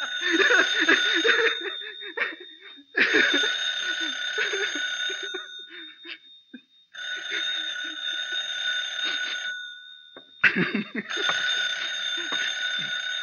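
Telephone bell ringing four times, each ring about two and a half seconds long with short pauses between. A man laughs over the first ring.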